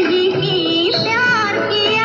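Bollywood film song playing, a wavering melody line with vibrato over the accompaniment.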